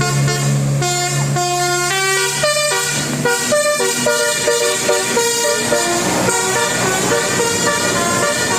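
Bus telolet horn of the Basuri type playing a quick melody, its notes stepping from pitch to pitch, with a low steady horn tone under the first three seconds.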